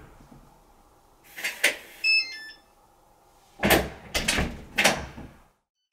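A front door with an electronic lock being opened and shut: two sharp clicks, then a short tune of high electronic beeps from the lock, then three heavy clunks from the door.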